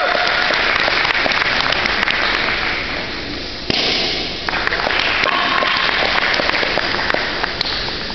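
Audience applauding, a dense crackle of many hands clapping. It thins out about three seconds in, then swells again suddenly.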